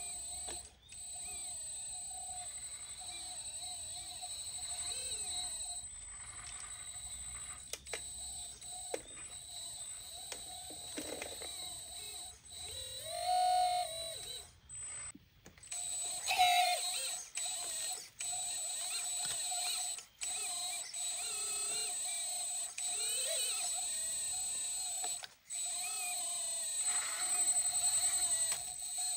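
Hydraulic pump of a 1/14-scale hydraulic RC excavator whining steadily as the boom and bucket work, its pitch sagging and recovering under load. The sound cuts off abruptly several times.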